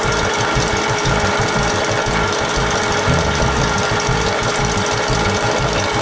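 Mastercraft belt and disc sander running while a cordless drill, turning in reverse, spins a round wooden shelf with its edge pressed to the sanding belt. The sound is steady: motor hum and sanding of the wood's edge.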